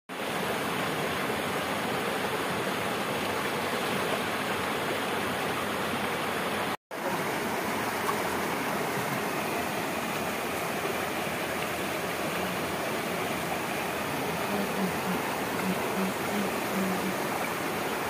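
Shallow rocky river rushing over stones close to the microphone, a steady even water noise. It cuts out for an instant about seven seconds in.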